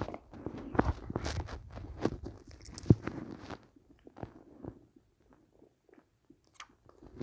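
A quick run of clicks and crunching noises, thinning out after about three seconds to a few faint ticks.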